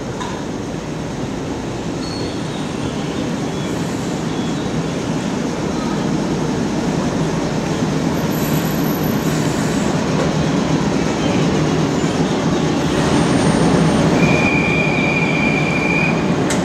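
JR 719 series two-car AC electric train pulling into the station and slowing to a stop, its running noise growing louder as it draws alongside. Near the end a steady high squeal sounds for about two seconds as it halts.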